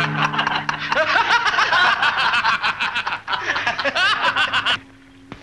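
Several men laughing together, breaking off suddenly near the end.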